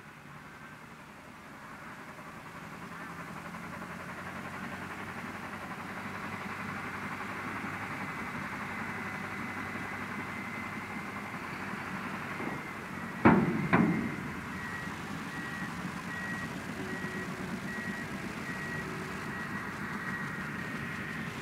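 Heavy diesel earthmoving machinery running, a bulldozer and dump truck at work, growing louder over the first few seconds. About halfway there are two loud bangs close together, then a reversing alarm starts beeping, a little under two beeps a second.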